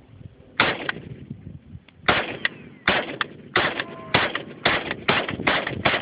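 AK-47 rifle in 7.62x39 firing single shots: one shot, a pause of about a second and a half, then a steady string of about eight more at roughly two a second.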